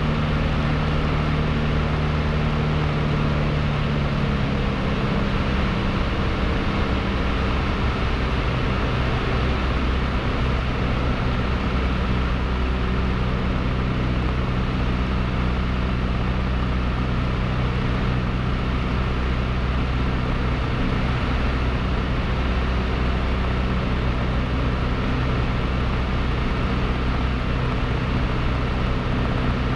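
Cessna 152's four-cylinder Lycoming engine and propeller running steadily in flight, heard inside the cabin. Its tone shifts slightly lower about four to five seconds in.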